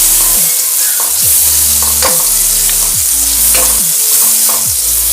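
Butter sizzling as it melts in a hot kadai: a steady frying hiss, with a few light clicks.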